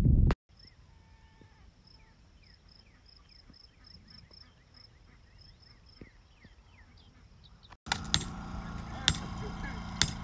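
Wind buffets the microphone briefly, then a quiet stretch of birds chirping, with short rising and falling calls and a repeated high note. Near the end, sharp hammer blows on footer form stakes, about one a second and each ringing briefly, over a steady low hum.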